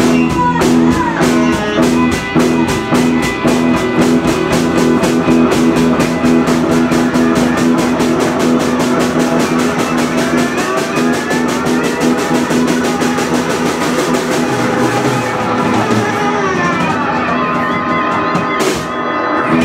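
Live blues-rock band playing: electric guitars, bass guitar and a drum kit, with a fast, even drum beat. The drumming drops out about three-quarters of the way through, and a single loud hit lands near the end.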